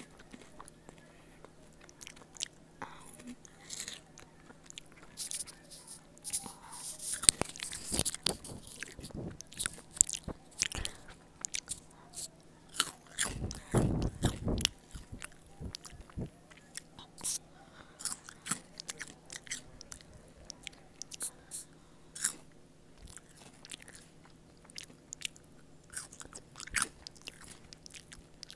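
Close-mic chewing and crunching of crispy spicy chips, recorded on an earbud microphone held at the mouth: irregular crisp crunches and small mouth clicks, with denser, louder crunching about a quarter of the way in and again around halfway.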